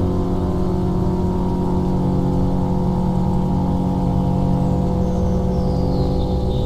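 A steady, dense drone of many sustained tones over a low rumble, with a faint high falling whistle near the end.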